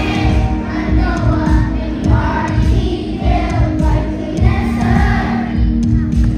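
Young children's choir singing along to accompaniment music with a steady, pulsing bass beat.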